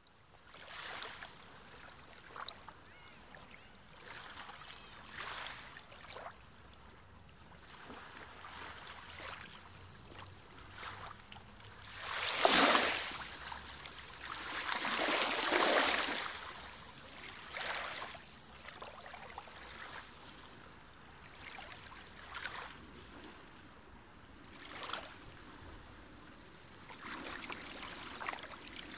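Shallow sea water sloshing and splashing around rocks at the surface, in uneven surges, with two louder splashing swells partway through.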